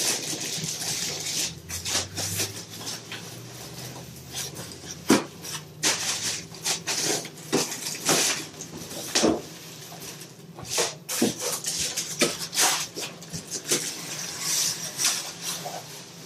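Packaging being handled as a computer case is unpacked from its box: irregular rustling and crinkling with many scattered clicks and knocks.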